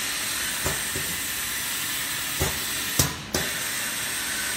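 Automatic screen printing machine working through a print stroke: a steady hiss with several short clunks as the squeegee carriage and screen frame move. The loudest clunk comes about three seconds in, the hiss dropping away for a moment and returning with another knock.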